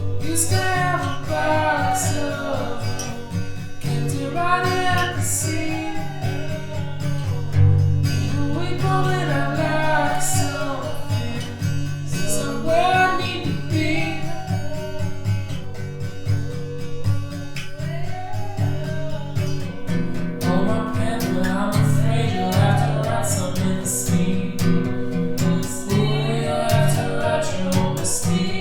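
A song: a sung vocal line over plucked guitar, with steady low bass notes and regular light percussion hits.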